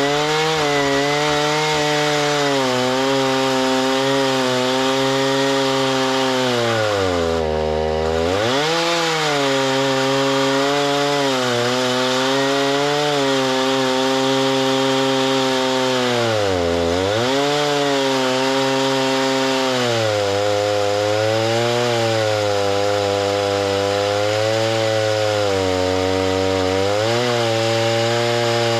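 Chainsaw engine running hard under load, its pitch wavering slightly and dropping sharply twice as the engine bogs down in the cut before recovering.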